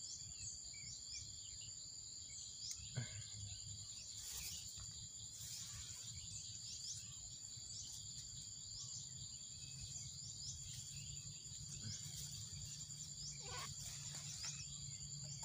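Insects trilling steadily, a faint high continuous buzz with regular chirps. A few soft rustles of grass being handled sound now and then, the clearest about three and four seconds in and again near the end.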